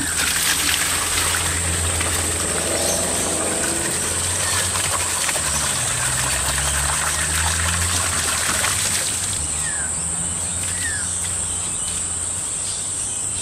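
Dirty water gushing from the bottom drain tap of an aquaponics radial flow filter into a plastic bucket, strongest at first and stopping about nine seconds in. This is the back-flush that clears the settled solids ("grot") out of the filter.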